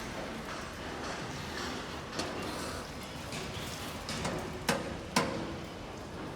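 Steady background noise with sharp knocks: one about two seconds in, then two half a second apart near the end, the last the loudest.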